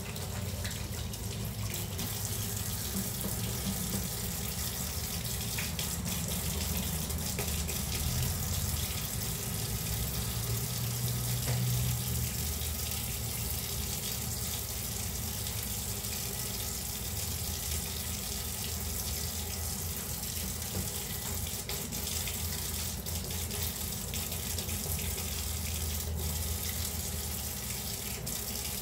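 Kitchen sink faucet running steadily as hands are washed under it, with a few faint knocks.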